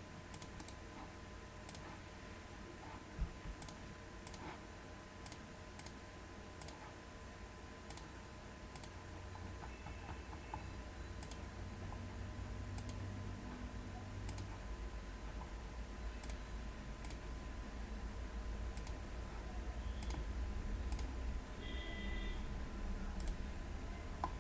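Computer mouse clicking at an irregular pace, about one click a second, faint over a steady low hum.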